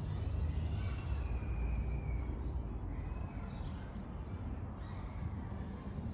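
Small birds chirping and singing in short phrases over a steady low rumble of distant road traffic.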